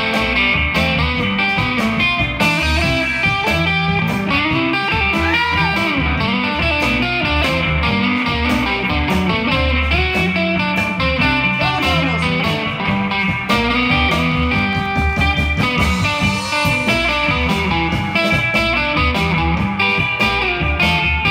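Live band playing an instrumental break: lead electric guitar with string bends over upright bass and drums.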